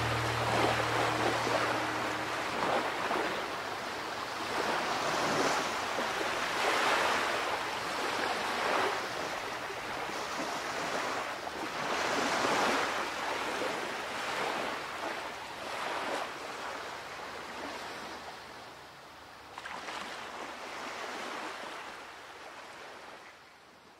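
Sea waves breaking and washing onto a beach, the surf rising and falling in uneven swells every couple of seconds and slowly fading out.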